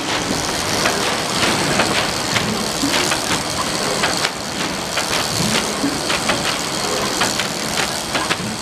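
Automated packaging-line machinery running: a steady mechanical noise from the GEA PowerPick's conveyors and pneumatic pick-and-place unit, with frequent irregular clicks and clacks.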